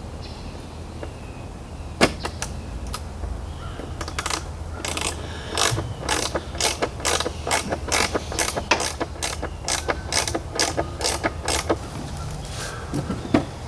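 Ratchet wrench clicking as a bolt is run in: a few clicks about two seconds in, then a steady run of about three clicks a second until near the end.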